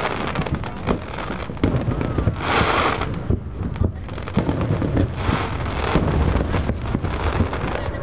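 Aerial fireworks going off in quick succession: a constant run of booms and bangs, with bursts of crackling between them.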